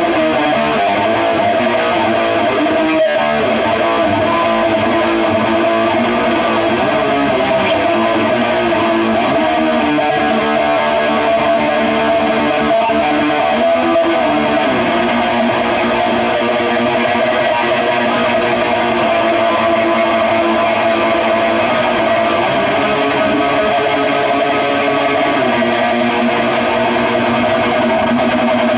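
Electric guitar played straight into a Crate Blue Voodoo head and a cab loaded with two Eminence 12216 speakers, chords ringing and changing about halfway and again near the end.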